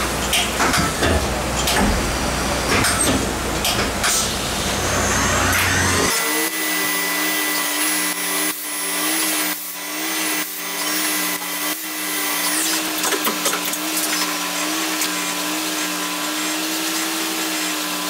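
CNC machining centre drilling the rocker-cover bolt holes in a Rover V8 cylinder head. For the first few seconds there is a noisy spread of coolant and cutting sound with many sharp clicks, and a pitch rises. About six seconds in this gives way to the spindle's steady whine, which wavers slightly, with a few faint clicks.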